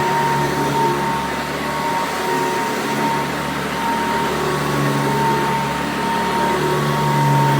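Vacuum cleaner running steadily: a constant motor hum with a steady high whine over it.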